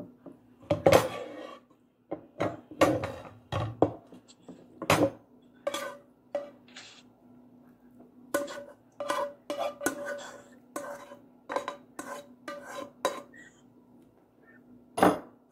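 A serving spoon scraping and knocking against a metal frying pan as meat sauce is scooped and tapped out of it: a string of irregular clanks and scrapes, some briefly ringing.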